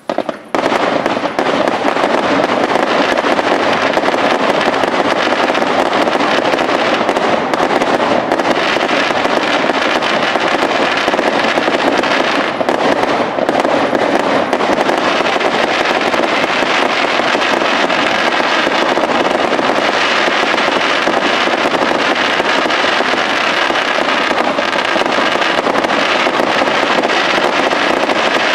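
Fireworks display: a couple of sharp bangs at the start, then a dense, unbroken barrage of rapid reports and crackle that keeps a steady high level.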